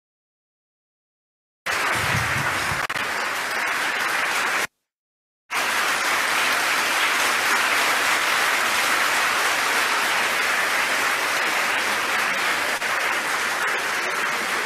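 Audience applauding steadily. The sound drops out completely twice, for about the first second and a half and again for under a second about a third of the way in, as the streamed audio cuts out.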